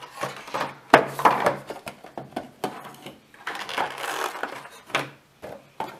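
Hands handling a small plastic figure and fitting it to its stand: clicks and rustling, with one sharp click about a second in.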